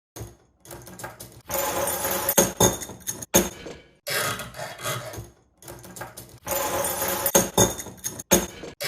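Foley metal rattling and clinking: handheld metal objects shaken and knocked together, with sharp clanks, in three stretches with short pauses between them.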